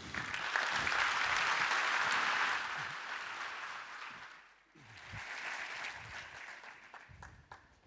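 Audience applauding, dipping away about four and a half seconds in, then a second, quieter stretch of clapping that dies out near the end.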